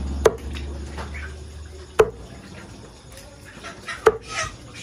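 Meat cleaver chopping raw chicken on a thick wooden chopping block: three sharp chops, about two seconds apart.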